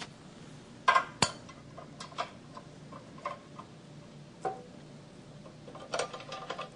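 Scattered sharp metallic clicks and clinks, the clearest about a second in and again near the end: a wrench and metal parts being handled while a small belt sander is set up for reconfiguring, with the motor off.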